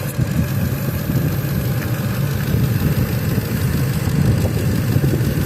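Ford 5.4-litre V8 idling steadily, with a faint high hiss from a vacuum leak at a cracked hose elbow on the engine.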